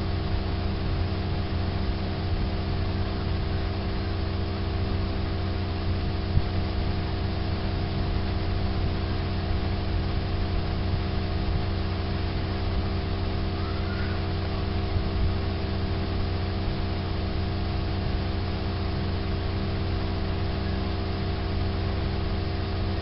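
Steady background hum: a low drone with several steady higher tones over an even hiss, unchanging throughout, with a single sharp click about six seconds in.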